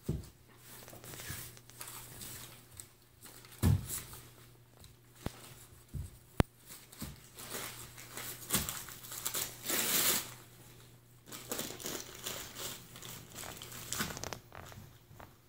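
Dogs chewing and ripping brown wrapping paper: paper crinkling and tearing in irregular bursts, thickest around ten seconds in, with a few sharp knocks, the loudest about four and six seconds in.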